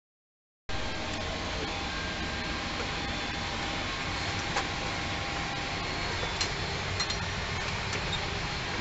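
After a brief silence, the steady hum and airflow of a parked Boeing 737-800's cockpit ventilation and equipment fans, with a few light clicks.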